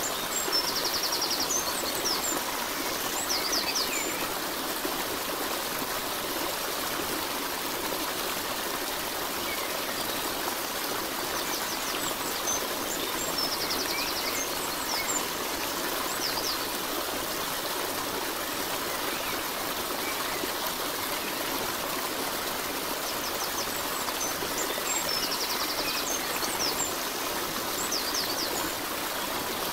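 Running water with a steady, even rush. A short cluster of high chirps returns about every twelve seconds, as in a looped recording.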